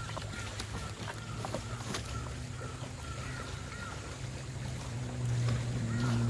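Haswing 1 hp electric boat motor running with a steady hum and a wavering higher whine, getting louder about five seconds in, with scattered light clicks and knocks.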